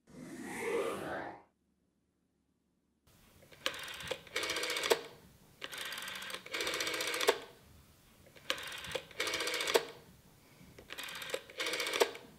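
Rotary telephone dial being turned and released again and again as a number is dialled. Each return of the wheel gives a fast run of clicks that ends in a sharp stop click, several digits in a row. A short sound at the very start is followed by about a second and a half of silence before the dialling begins.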